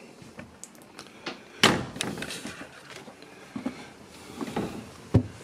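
A wooden cabin door shut with one solid knock about a second and a half in, followed by a few lighter knocks and clicks.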